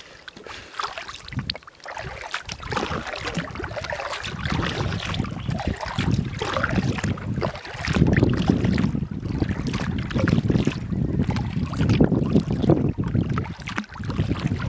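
Water splashing and lapping against the hull of a moving inflatable kayak, with wind buffeting the microphone; the rumble of wind and water grows louder about eight seconds in.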